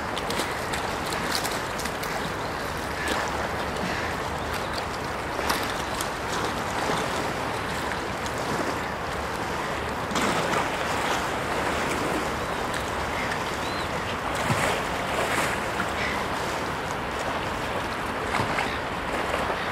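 Steady wash of harbour water with wind buffeting the microphone, broken by a few brief clicks.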